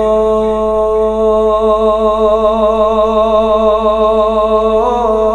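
A man singing unaccompanied Punjabi Sufi kalam into a microphone, holding one long note on the end of a line, with vibrato setting in after a second or so. The pitch steps up slightly near the end.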